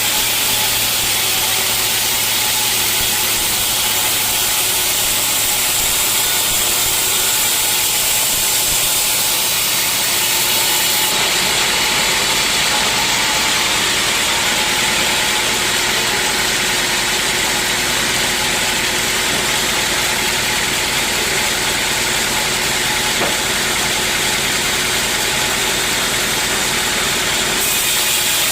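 Sawmill saw running steadily: a loud, constant machine noise with a strong high hiss, its top end changing about eleven seconds in.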